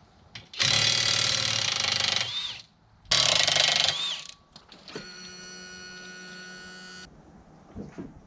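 Cordless impact wrench hammering the propeller nut off an outboard's prop shaft in two bursts, the first about two seconds long and the second about one, followed by a quieter steady whir for about two seconds.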